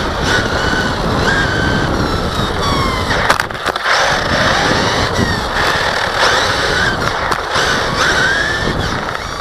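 Team Associated RC8.2e electric 1/8-scale RC buggy driving over loose gravel: its electric motor whines, the pitch rising and falling with the throttle, over the steady crunch and rattle of tyres and chassis on the gravel. A brief drop with a few sharp clicks about three and a half seconds in.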